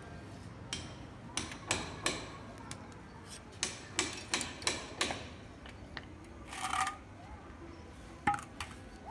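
Hand tool striking hard building material in construction work: about ten sharp knocks at an uneven pace, several in quick succession around four to five seconds in. A short scraping burst follows, then one last loud knock near the end.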